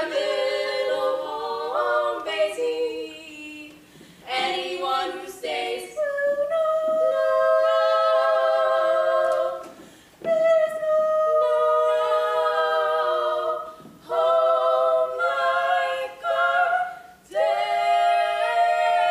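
A trio of young female voices singing an a cappella song in close harmony, with long held notes broken by short pauses between phrases.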